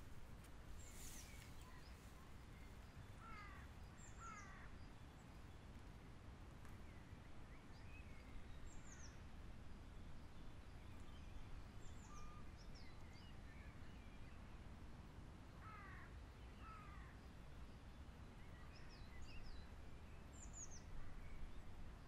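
Woodland birds calling faintly over a steady low background rumble: two pairs of short downward-sliding calls, and scattered high, thin chirps. A brief rustle about a second in.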